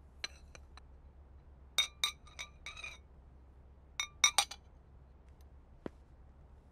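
Glazed porcelain jar clinking: several short clusters of ringing knocks against its rim as a hand rummages inside and lifts a pistol out, then a single soft click.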